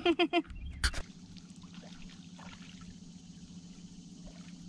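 Handling noise in a small jon boat: a low thump with a sharp knock about a second in, then a steady low hum with faint trickling water.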